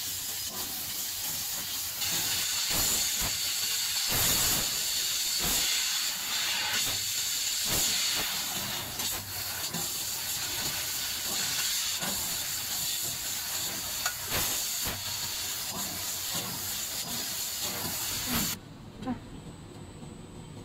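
Fiber laser tube cutter cutting a galvanized steel square tube: a loud steady hiss of the assist gas jet at the cutting head, with occasional crackles. The hiss stops abruptly near the end.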